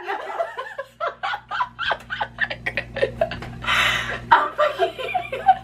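A woman laughing hard behind her hands, in quick breathy bursts with a gasp about four seconds in.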